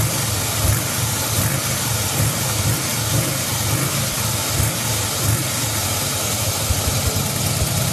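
Harley-Davidson Fat Boy 1450's V-twin idling steadily through a Roncar Scorpion 2Way exhaust set to its quiet mode, with the exhaust's butterfly valve closed. It is really quiet, like the stock exhaust.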